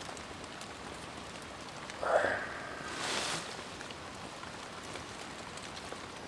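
Steady rain falling on a woodland shelter, heard from inside its thick leaf-insulated walls. A brief louder sound about two seconds in and a short hiss about a second later stand out over it.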